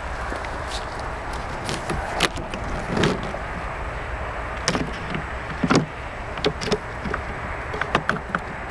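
Wooden beehive frames knocking and clicking against each other and the hive box as they are shifted by hand, about a dozen short sharp knocks over a steady background rush.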